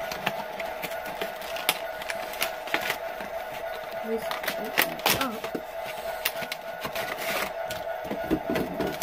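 Model train car packaging being handled: irregular clicks, taps and rustles from the cardboard box flap and the plastic tray as the boxcar is slid out, over a steady background hum.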